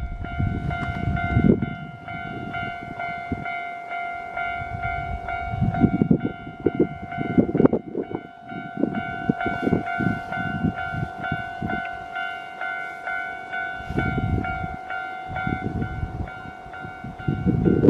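Japanese level-crossing warning bell ringing in a quick repeating electronic tone, over the low rumble and clatter of a Keio Line train passing.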